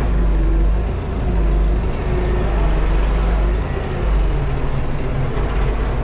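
Arbos tractor's diesel engine running, heard from inside the cab: a steady low drone whose pitch wavers slightly.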